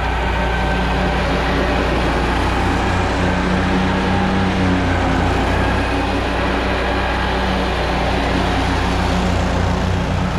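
Engine of a front-deck riding lawn mower running steadily at mowing speed, blades engaged, as it cuts grass close by.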